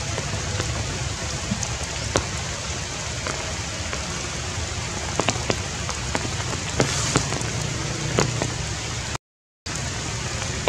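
Heavy rain falling steadily on a tree's leaves, with frequent sharp drop impacts standing out from the hiss. The sound cuts out completely for about half a second about nine seconds in.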